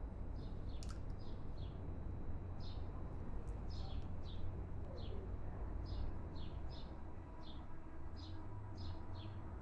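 A small bird chirping over and over: short high chirps, about two a second and irregularly spaced, over a steady low rumble. A single sharp click comes about a second in.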